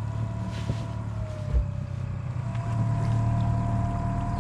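A boat motor running steadily at low speed, a low hum with a thin whine above it. There is a single dull thump about one and a half seconds in.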